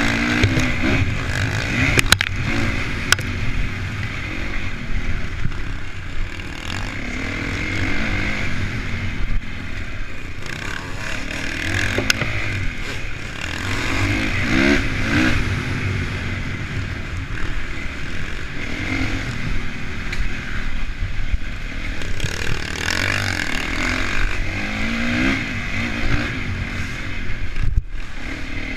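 Honda CRF450 motocross bike's single-cylinder four-stroke engine, heard from on the bike, revving up and easing off over and over as the rider accelerates and brakes around the track. A few sharp knocks stand out, around two seconds in and again around twelve seconds in.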